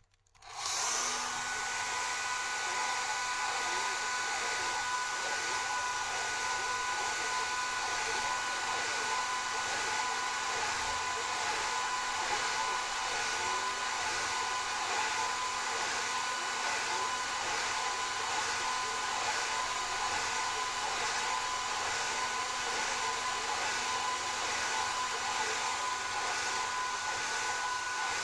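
Hand-held hair dryer switched on and then blowing steadily, a loud, even rush of air with a faint whine from its motor.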